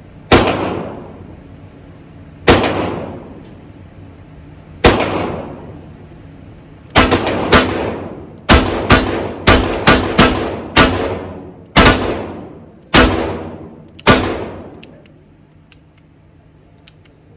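Fourteen shots from 1895 Nagant revolvers, which fire the 7.62×38mmR cartridge. Three single shots come about two seconds apart, then a quicker string of eleven follows over about seven seconds. Each shot rings off in a long echo.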